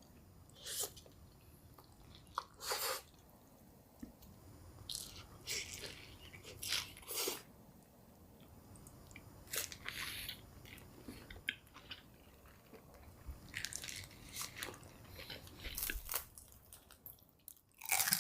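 Close-miked eating: a person biting and chewing crunchy food, with irregular crisp crunches every second or two.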